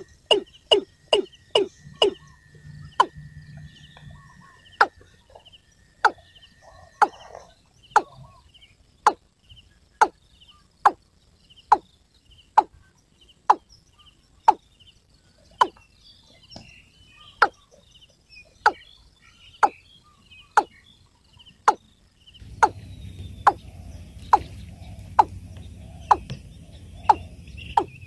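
Watercock calling: a long, even series of sharp 'kok' notes, about two a second at first, then slowing to roughly one a second. A steady low hum and hiss come in near the end.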